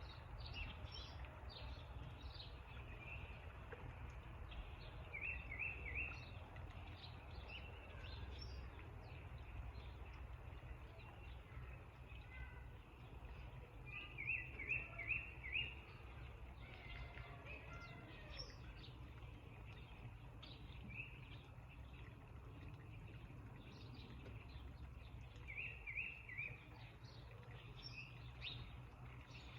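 Several backyard songbirds chirping, with a quick run of three or four notes repeating now and then, over a steady low rumble.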